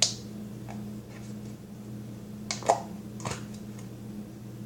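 A spoon clicking and scraping against a container and plate as macaroni salad is scooped out: a few sharp, irregular knocks, the loudest a little after the middle, over a steady low hum.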